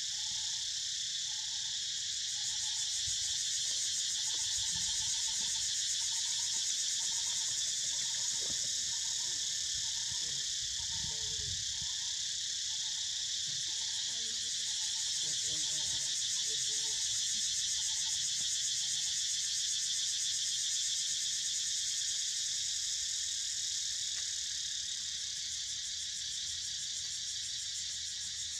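Steady, dense shrill chorus of insects. A faint, short lower note repeats about once a second through the first two-thirds.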